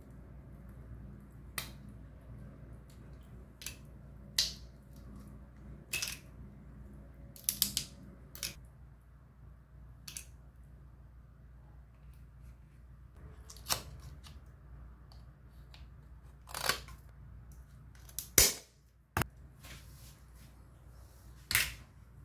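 Irregular sharp clicks and snaps, about a dozen, as cooked lobster shell is cracked and picked apart by hand and pieces tap on a stainless steel tray; the loudest snap comes about 18 seconds in. A steady low hum runs underneath.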